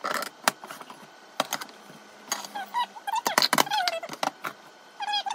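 Fast-forwarded kitchen handling: plastic lids and glass food-storage containers clicking and knocking on the counter, then sped-up, high-pitched chattering speech from about two seconds in.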